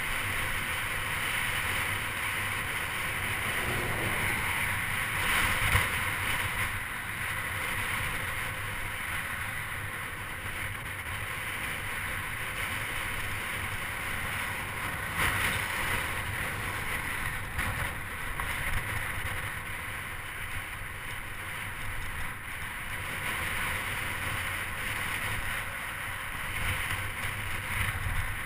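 Wind rushing and buffeting over the microphone of a camera riding along on a bicycle, mixed with the hiss of tyres rolling over rough, cracked asphalt. The noise is steady, swelling a little now and then.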